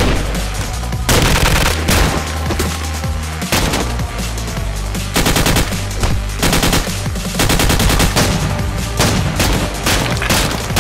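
Rapid bursts of automatic gunfire, action-animation sound effects, over loud background music.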